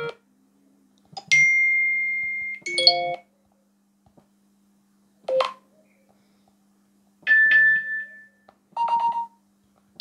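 iPhone 13 alert tones previewed one after another through the phone's speaker as each is tapped in the list: about five short electronic chimes and beeps with silent gaps between them. Some are a single held note that fades out, others a quick run of notes.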